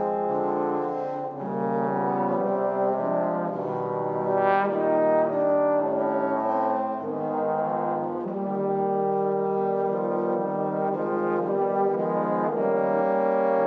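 Trombone quartet of three tenor trombones and a bass trombone playing together in harmony. The held chords change every second or two.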